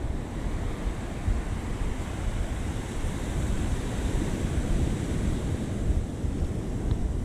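Ocean surf washing onto the beach, a steady rushing noise, with wind buffeting the microphone in low, gusty rumbles.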